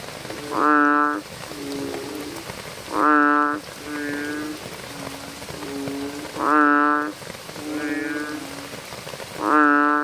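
A round-bodied frog calling from its inflated throat sac: four loud, low calls about three seconds apart, each about half a second long. Quieter calls sound in between, over a steady hiss of rain.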